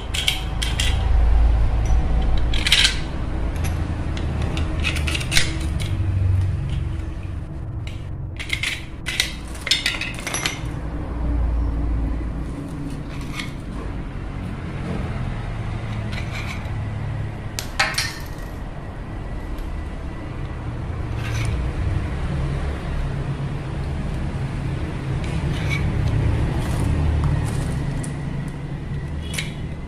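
Small metal and plastic parts clinking and rattling as steel rods, nuts and plastic spacers are handled and set down on a tiled floor, with irregular scattered clicks over a steady low rumble.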